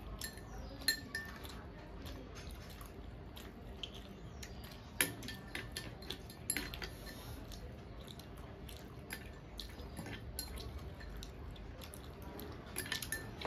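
Spoon clinking against a small glass bowl and hands working food on steel plates while eating: scattered light taps and clicks, with a few sharper clinks about a second in and around five seconds in.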